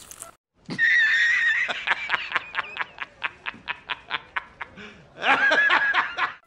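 A man laughing hard: a drawn-out first 'ha', then a fast run of short laughs, about five a second, and one more drawn-out burst near the end.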